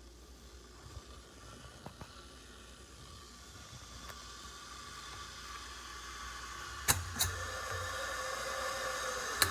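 Fellow Stagg EKG stainless steel electric gooseneck kettle heating water: a hiss with faint ringing tones that grows steadily louder. Two sharp clicks come about seven seconds in, and another near the end.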